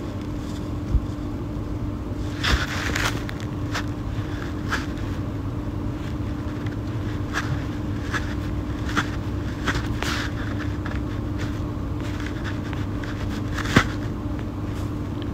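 Steady low room hum with scattered light clicks and knocks from a handheld phone being handled close to the microphone; the sharpest click comes about a second in and another near the end.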